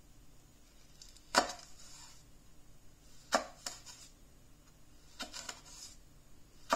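Damascus-steel chef's knife slicing thin rounds off a red chili pepper. The blade gives a sharp click on the glass cutting board under the paper towel with each cut: about five or six clicks at uneven intervals, a second or two apart.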